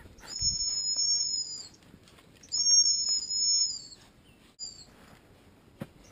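A gundog training whistle blown in two long blasts, about one and a half seconds each, then a short pip near the end, used to call a springer spaniel in to the handler.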